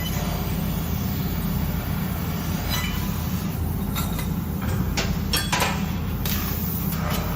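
6 kW tube cutting machine running with a steady low hum, with several sharp clicks and clanks from the machine.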